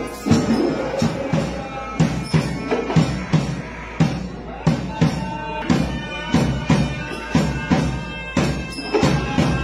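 Sri Lankan traditional drum music: drums struck in a steady repeating rhythm, about one to two strikes a second, with a reedy pipe playing a held melody over it from about halfway.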